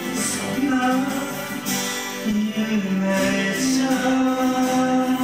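A man singing long held notes, accompanied by his own strummed acoustic guitar.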